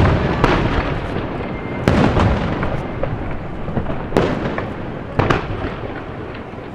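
Aerial firework shells bursting: a series of sharp bangs, roughly one a second and some in quick pairs, each trailing into a rolling echo and crackle.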